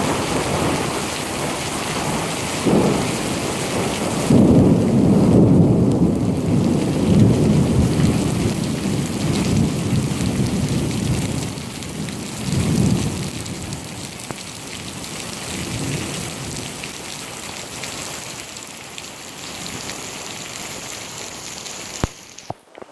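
Rain falling steadily through a thunderstorm, with rolling thunder: a long, loud rumble builds about four seconds in and lasts several seconds, followed by shorter rumbles that die away. The sound drops out briefly just before the end.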